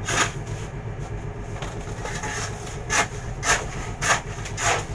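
The fishing boat's engine drones steadily. Five short scraping sounds are heard over it: one near the start, then four in quick succession from about three seconds in.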